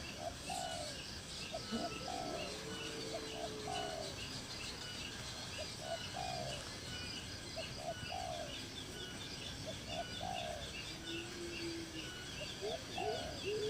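Birds calling: a low call of two short notes and a longer falling note, repeated about every two seconds, over a steady series of high, quick chirps.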